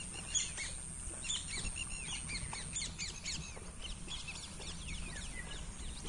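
Several small birds chirping in quick, overlapping short notes, with a thin, steady high-pitched whine that stops about halfway through.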